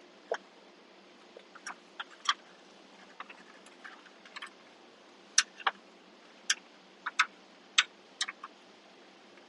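Irregular sharp clicks and taps from hands handling a plastic dash trim panel and the wires being threaded through its holes, about fifteen in all, coming closer together and louder from about halfway through.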